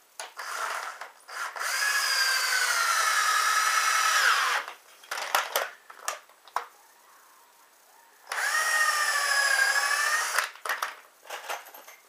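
Cordless drill boring into a painted timber frame at a corner joint: a short start, then a steady motor whine for about three seconds, and a second run of about two seconds later on. Short clicks and knocks come between and after the runs.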